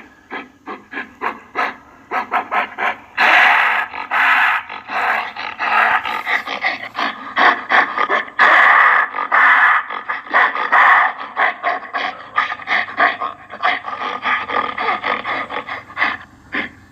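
Gorilla vocalising: a rapid run of short grunts and huffs, several a second, broken by louder, longer rough calls about three seconds in and again from about eight to eleven seconds in.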